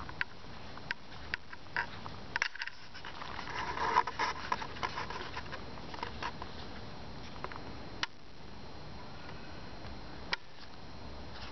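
Handling noise from a handheld camera being carried and panned: scattered clicks and scrapes over a faint steady hiss, with a rustling stretch about four seconds in and single sharp clicks near the end.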